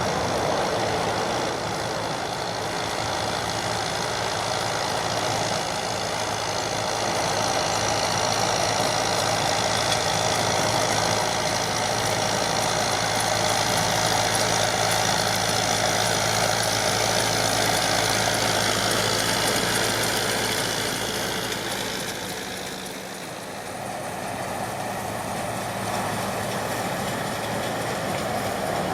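John Deere 5720 tractor's diesel engine running steadily while it drives a Feraboli round baler baling straw. The sound eases off briefly a little past the middle, then picks up again.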